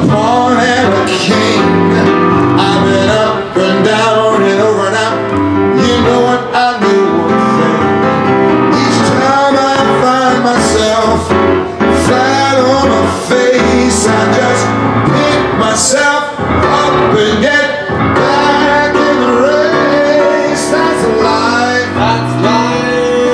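Live band music with a male voice singing over it, drums keeping the beat.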